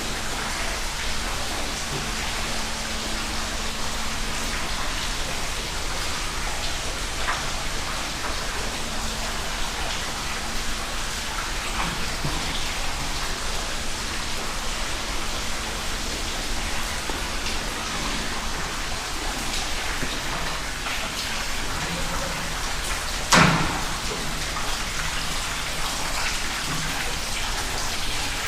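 Rain and dripping water: a steady patter and hiss of rainwater falling and dripping. Once, late on, a single sharp knock stands out above it.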